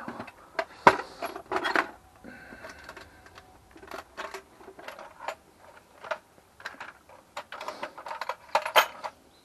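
Metal hand tools clinking and clattering as they are picked up, handled and set down. The sound is a string of irregular sharp knocks, some with a brief metallic ring, loudest about a second in and near the end.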